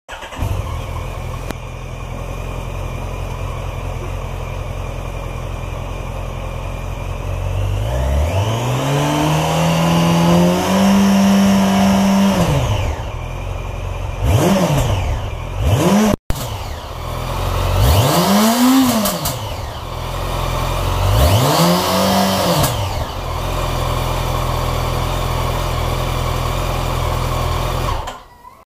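A 2013 Yamaha FZ8's inline-four engine idling, then revved through its exhaust. It rises into one long rev held high before dropping back, gives a couple of quick throttle blips, and after a sudden break blips twice more before settling to idle. The sound cuts off abruptly near the end.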